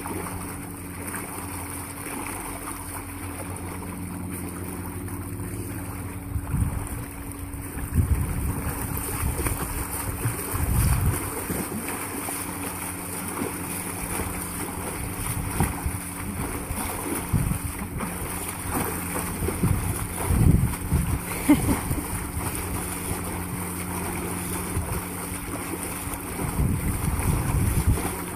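An endless-pool propulsion jet churns the water with a steady motor hum. A swimmer's front-crawl strokes splash against the current, with heavier splashes now and then.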